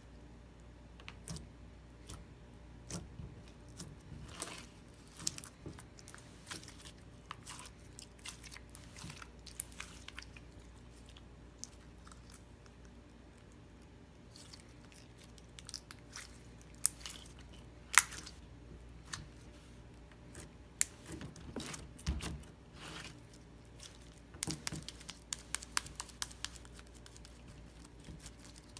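Slime being squished and pulled by hand, giving irregular small crackles, clicks and pops. There is a quieter stretch about halfway through, and the clicking grows denser near the end.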